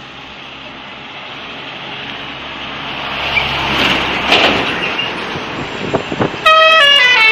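A bus approaching, its engine and road noise growing steadily louder, then about six and a half seconds in its telolet horn, a multi-trumpet musical bus horn, sounds a loud run of notes stepping down in pitch.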